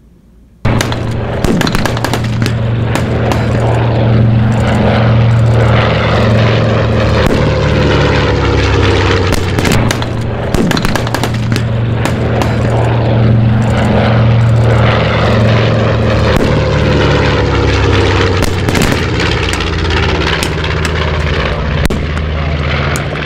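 Propeller aircraft engines running, a loud steady drone whose pitch slowly rises and falls. It starts suddenly about a second in.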